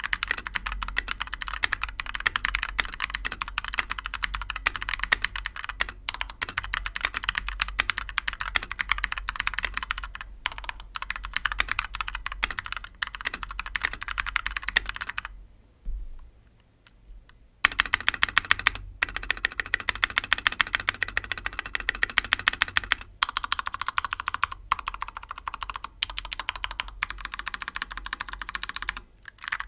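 Fast continuous typing on a Vortex VX7 Pro mechanical keyboard with Outemu Red linear switches, a rapid stream of keystrokes broken by a pause of about two seconds halfway through.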